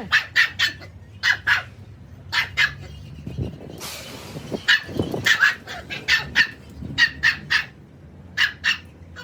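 A dog barking repeatedly in short, sharp yaps, often two in quick succession, with a brief hiss about four seconds in.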